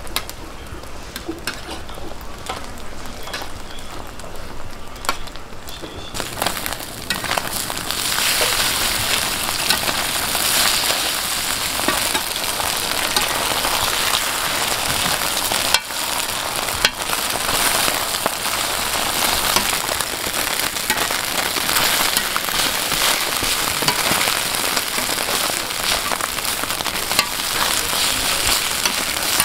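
Egg and glass-noodle batter sizzling on a flat griddle, with a metal spatula scraping and tapping against the hot plate as the egg is cut and turned. The sizzle grows louder about six seconds in.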